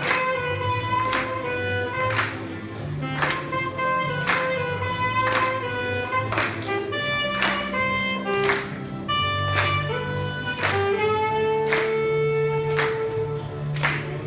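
Instrumental music with a steady beat of about two strokes a second, a bass line and a melody of held notes, one long note near the end.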